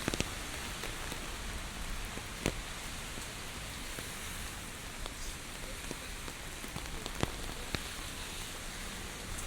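Steady heavy typhoon rain hissing on hard surfaces, with a handful of sharp drip taps scattered through it, the strongest near the start, about two and a half seconds in, and around seven seconds in.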